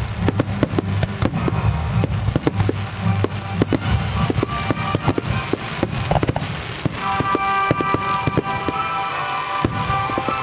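Fireworks shells bursting in a rapid run of sharp bangs and crackles, several a second, over music played with the display. From about seven seconds in the bangs thin out and a sustained melody comes to the fore.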